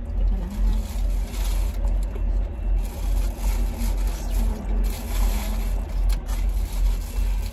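A low, pulsing rumble inside the car cabin, with light scrapes and clicks of a plastic fork in a foam takeout container.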